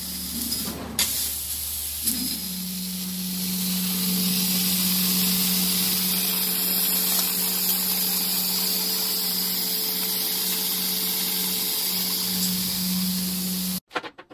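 CNC fiber laser cutting steel plate: a steady hiss of the assist-gas jet at the cutting nozzle, with a steady low hum from the machine joining about two seconds in. Both cut off abruptly near the end.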